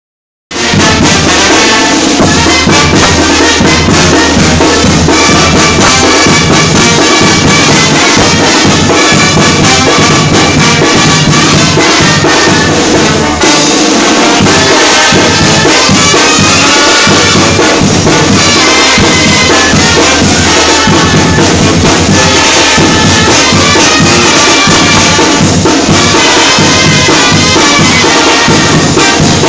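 Live Mexican banda playing loudly: trumpets, trombones, a sousaphone and clarinets over drums, starting about half a second in.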